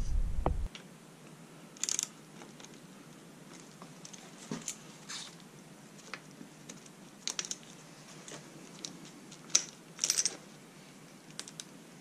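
Scattered light metallic clicks and taps of hand tools and parts being handled at a dirt bike's rear brake caliper, irregular and a few at a time.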